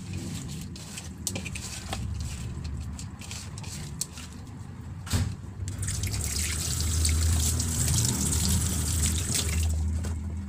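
Wet squishing and small clicks of raw peeled shrimp being mixed by hand in a bowl. About six seconds in, water starts running in a steady, loud hiss and stops just before the end.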